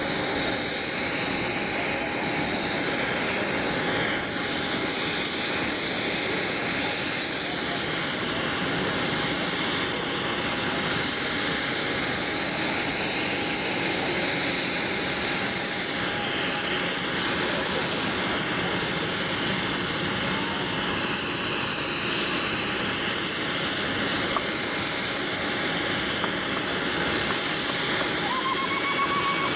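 Airbus A319-100 jet engines running at taxi power as the airliner rolls past: a steady rushing noise with a high whine that wavers up and down in pitch. A brief high tone sounds near the end.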